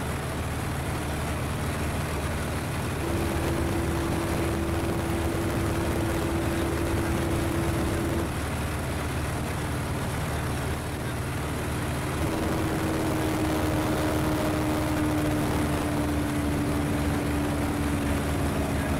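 Just Aircraft Highlander light aircraft in flight, its engine and propeller droning steadily as heard inside the cockpit. A faint steady tone comes in twice over the drone, a few seconds in and again past the middle, the second one slowly dropping in pitch.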